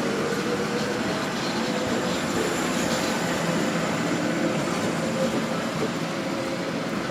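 Manchester Metrolink T68 tram running on its rails: a steady rumble and rail noise with faint tones.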